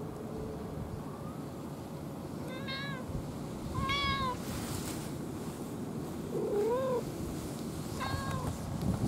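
Domestic cat meowing four times, short arching meows a second or two apart.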